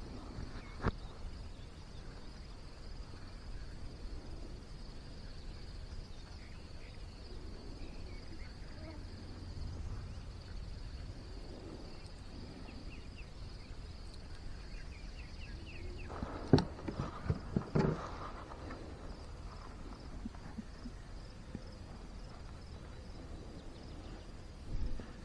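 Insects trilling steadily in a high thin drone, with a few scattered clicks and a short cluster of knocks and clatter about two-thirds of the way through.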